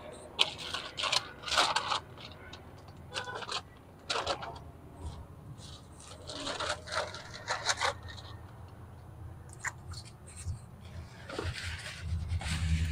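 Irregular rustling, crinkling and scraping of cardboard, paper and plastic bags being shifted and pulled by hand inside a dumpster, over a low steady hum.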